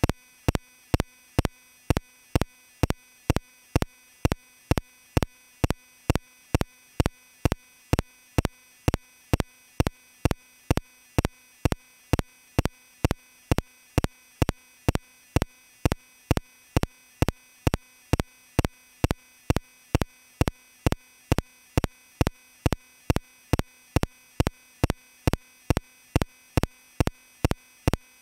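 Regular electronic ticking, sharp, even pulses about two a second that keep going without change.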